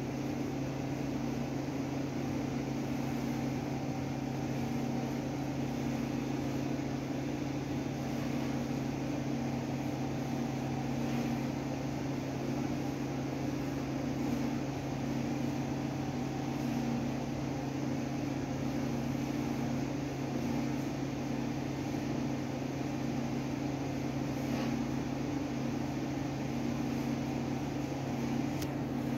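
Steady low machine hum, unchanging throughout, with an even hiss over it.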